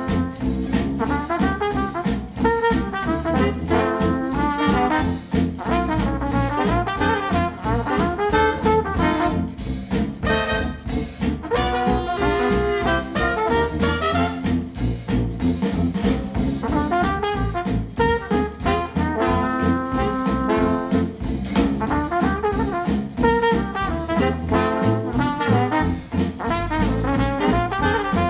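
Jazzy, brass-led instrumental music with horn lines over a steady beat, played back through KEF LS50 Meta bookshelf speakers driven by a NAD C 338 integrated amplifier.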